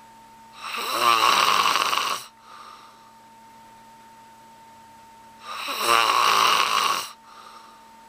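A man snoring loudly through his open mouth while asleep: two long rasping snores about five seconds apart, each followed by a brief softer breath.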